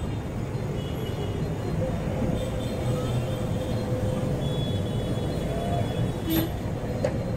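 Busy street ambience: a steady rumble of traffic, with a faint held tone through the middle and a sharp click about six seconds in.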